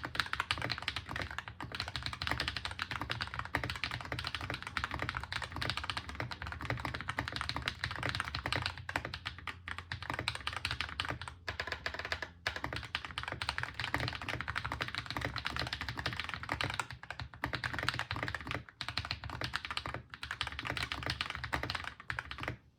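Fast continuous typing on a Keychron C1 mechanical keyboard with lubed AKKO Ocean Blue switches, tape-modded and foam-dampened: a dense stream of key clacks with a few brief pauses, stopping suddenly near the end.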